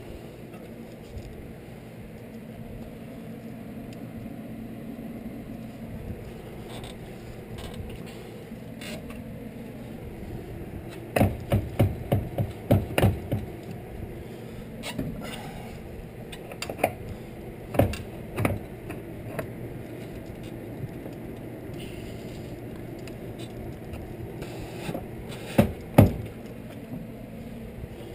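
Knocks and clunks from a car's front wheel hub and brake rotor being worked by hand while a CV axle is fitted through it. There is a quick run of knocks about halfway through, scattered single ones after, and the two loudest near the end, over a steady low hum.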